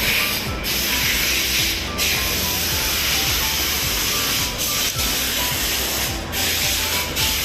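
A steady hiss of spray or escaping air, cut off briefly several times.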